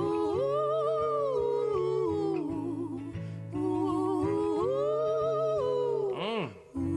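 Music: a man's and a woman's voices humming long wordless notes in harmony over a sustained low chord, swelling and gliding between pitches, with a brief drop-out and a quick rising-and-falling slide near the end.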